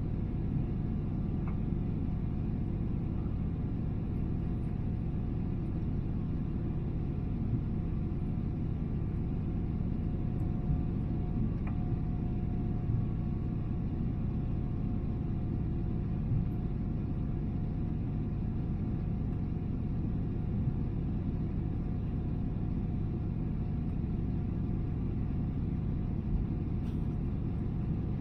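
Steady cabin rumble of a Boeing 777-300ER in flight, heard from a window seat behind the wing: the two GE90-115B engines and the airflow over the fuselage make an even low roar, with a faint steady hum above it.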